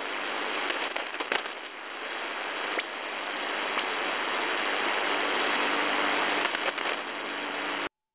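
Shortwave radio static through a WebSDR receiver: an even hiss cut off sharply above about 4 kHz, with scattered crackles and a faint steady hum, and no voice on the channel. It cuts off abruptly near the end.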